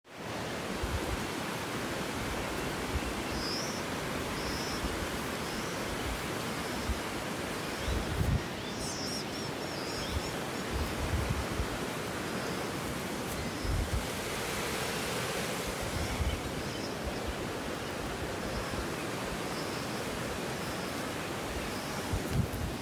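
Small birds giving short, high-pitched alarm calls about once a second, with a brief flurry of calls about eight seconds in, over a steady rushing background noise and low thumps of wind on the microphone.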